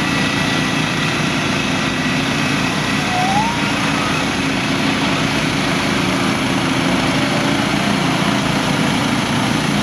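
Gasoline engine of a Norwood Frontier OS-27 manual bandsaw mill running steadily under load while its band blade cuts lengthwise through a log.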